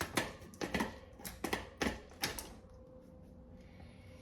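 Light metallic clicks and knocks, about seven in two and a half seconds, as the motorized bicycle's front wheel is fitted back onto the fork, then they stop.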